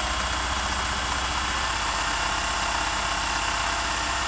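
Singer 401A vintage sewing machine running at a steady fast speed, its needle stitching a cam-driven decorative stitch pattern with a rapid, even rhythm over a constant motor whine.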